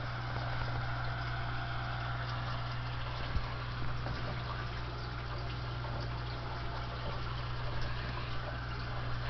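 Cobra 148 CB radio putting out steady static hiss over a constant low hum, with a faint steady tone and a few small clicks. The owner describes the radio as fighting with itself.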